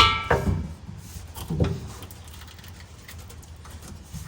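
Steel exhaust pipe and hanger being forced into place: a sharp metallic bang with a brief falling screech, then a weaker knock just after and another about a second and a half in.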